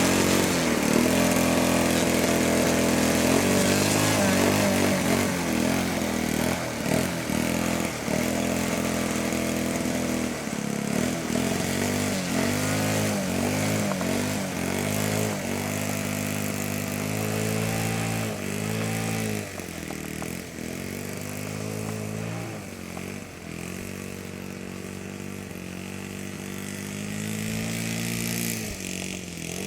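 O.S. 120 FS four-stroke glow engine of a large RC scale model plane running. It holds a steady pitch for the first several seconds, then its pitch repeatedly dips and rises before settling again, a little quieter, near the end.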